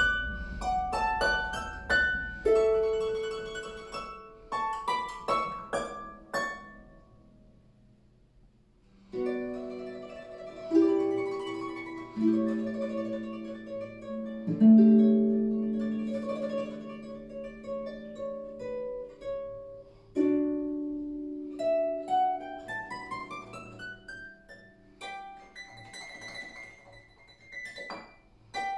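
Solo concert harp playing: a passage of short plucked notes, then a brief quiet pause about a quarter of the way in. After the pause come ringing chords low in the harp's range, and a quick rising run of notes near the end.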